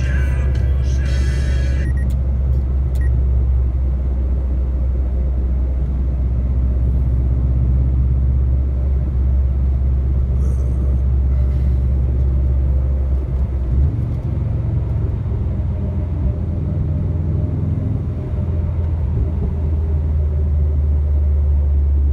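Subaru WRX's flat-four engine and road noise heard from inside the cabin while cruising: a steady low drone whose pitch shifts about two-thirds of the way through.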